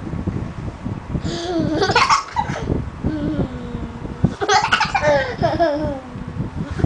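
A toddler laughing in two bouts, the first about a second in and the second around four and a half seconds in, with a lower drawn-out vocal sound between them.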